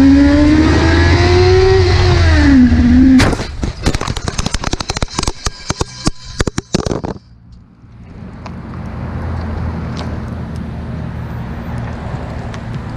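Sportbike engine running hard at high speed with wind rush, its pitch wavering, then about three seconds in a sudden crash as the motorcycle hits a stationary vehicle. About four seconds of clattering and scraping follow as the bike and camera tumble and slide along the road, cutting off suddenly, then a steady low rumble with hiss.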